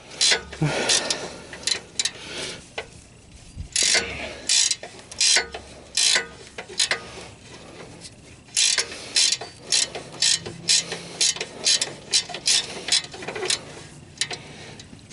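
Ratcheting wrench clicking in short strokes as it unscrews an oxygen sensor from the exhaust. The clicks are scattered at first, then come about twice a second for the second half.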